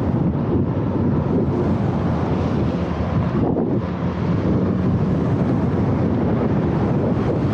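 Wind buffeting the microphone of a camera on a moving bicycle: a loud, steady low rumble with a brief lull about three and a half seconds in.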